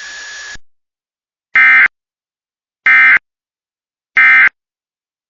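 Emergency Alert System end-of-message signal: three short, loud SAME digital data bursts, each about a third of a second long and about 1.3 seconds apart, marking the end of the warning broadcast. Before them, a steady broadcast hiss with a thin tone cuts off in the first second.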